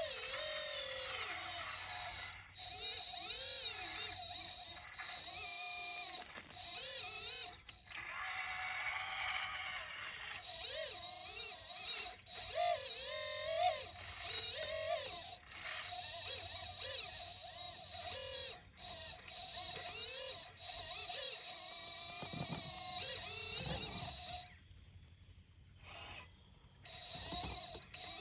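Electric hydraulic pump and servos of a 1/14 scale RC excavator whining, the pitch dipping and rising in short swells as the hydraulics take load, over a steady high-pitched whine.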